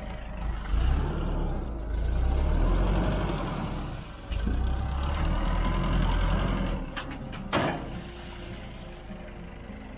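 Small tipper truck running while a load of sand slides off its raised bed, a heavy rumble that dips briefly in the middle, followed by a few sharp knocks about seven seconds in.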